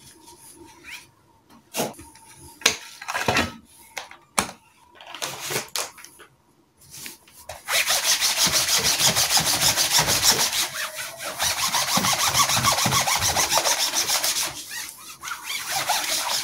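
A baby wipe being rubbed fast back and forth over a laptop lid, a loud, steady scrubbing from about halfway through that eases off near the end. Before it comes short crinkling and rustling as the wipe is handled and unfolded.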